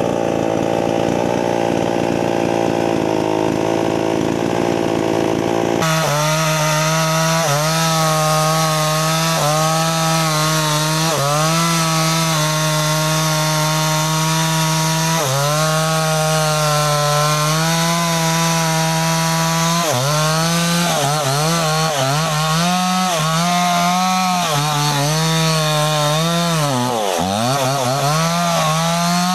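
New West 628 two-stroke chainsaw sawing into a sengon trunk. For the first six seconds it runs with a steady, noisy note. After that the engine note dips in pitch and recovers again and again as the chain cuts, with the dips coming more often near the end.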